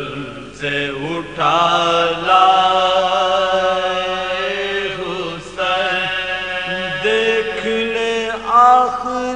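Male voice chanting an Urdu marsia in soazkhwani style: slow melodic recitation in long held, wavering notes, with short breaks between phrases and no instruments.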